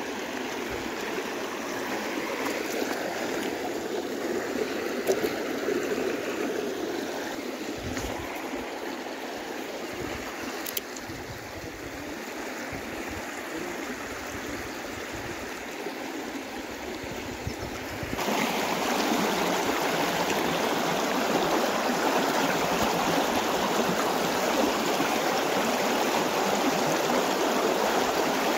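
Creek water rushing over a low line of rocks, a steady rushing noise that gets louder about two-thirds of the way through.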